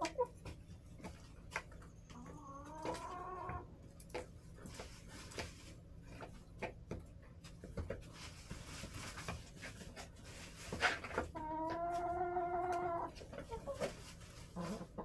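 Chickens calling in the coop: two drawn-out calls, one rising in pitch about two seconds in and a longer steady one about eleven seconds in, over scattered sharp taps and clicks.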